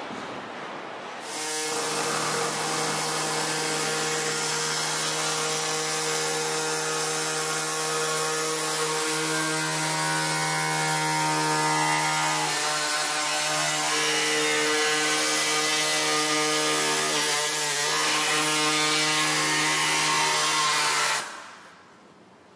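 Pneumatic reciprocating air saw cutting through a fiberglass panel, running at a steady high buzz for about twenty seconds. It starts about a second in, dips slightly in pitch a couple of times as it bites, and cuts off sharply near the end.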